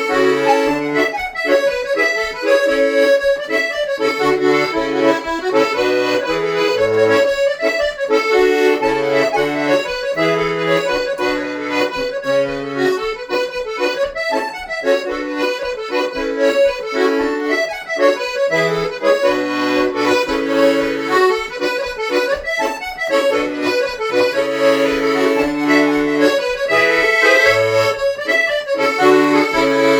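Accordion playing a lively Irish traditional dance tune: a quick melody line over steady, regularly changing bass chords.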